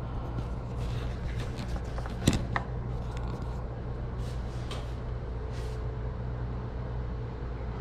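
Steady low room hum, with light handling rustles and clicks close to the microphone and one sharp knock about two seconds in.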